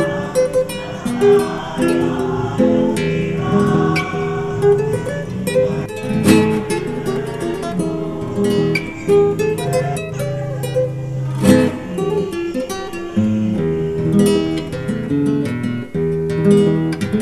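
Music of strummed acoustic guitars and other plucked string instruments playing chords and a melody.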